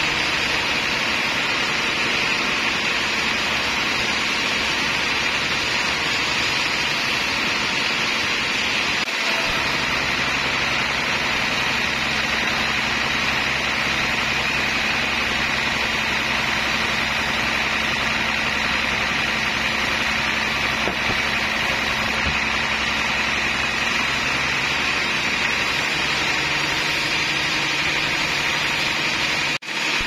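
Large sawmill band saw running steadily as it cuts through a slab of trembesi (rain tree) wood, a continuous machine noise with a steady high hum.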